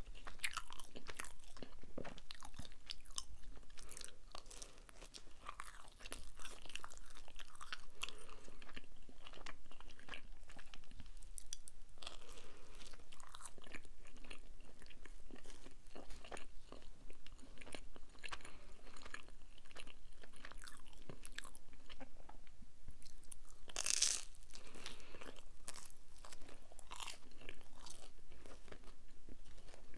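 Close-miked chewing and biting of Domino's cheese pizza: irregular crunching and crackling of the crust as it is bitten and chewed, with one louder bite a little over three-quarters of the way through.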